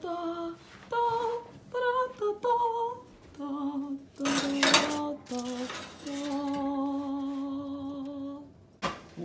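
A voice humming or singing a drawn-out tune, short wavering notes at first, then long held notes. About four seconds in, a metal clatter of the oven rack and baking pan.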